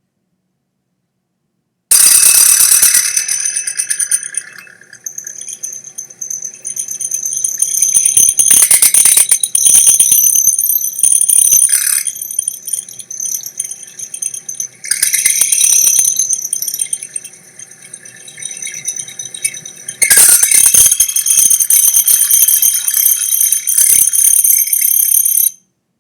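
Milling machine cutting 6063 aluminum U-channel with an end mill: a loud, high-pitched ringing chatter that swells and fades several times as the cutter works through the metal, then cuts off suddenly near the end. The end mills are old and not sharp.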